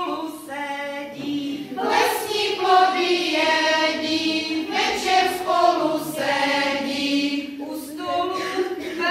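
A small group of women singing a song together, with long held notes.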